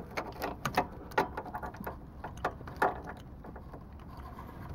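A key clicking and scraping against a stiff terminal cap as it is pried off a lead-acid battery post, with the other keys on the ring jingling; irregular small clicks, a few sharper than the rest. The caps are stiff with cold.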